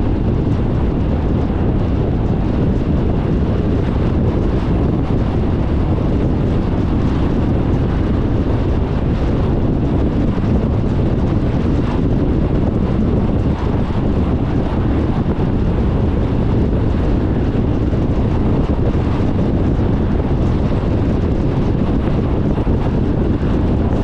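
Steady low rumble of a car driving along a paved road at speed: tyre noise and wind, unbroken and even throughout.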